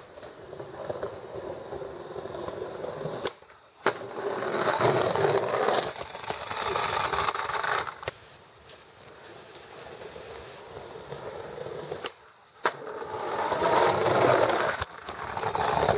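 Skateboard wheels rolling over paving, swelling and fading in two long passes, with a few sharp clacks of the board.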